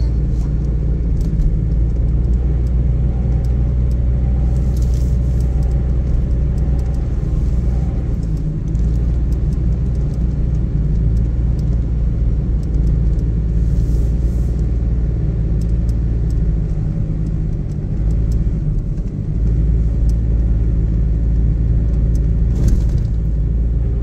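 Steady low rumble of engine and tyre noise inside a moving car's cabin.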